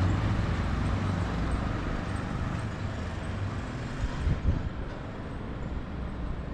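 Motor vehicle running on the road: a steady low engine and road rumble that eases off gradually, with a short knock about four and a half seconds in.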